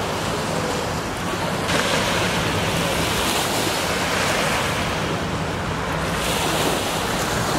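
Small lake waves washing onto a sandy beach, with wind rumbling on the microphone. The wash swells up about two seconds in and again near the end.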